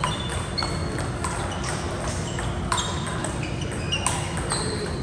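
Athletic shoes squeaking in short, high chirps on a hard indoor court floor, about ten times, with a few sharp knocks over a steady low rumble of room noise.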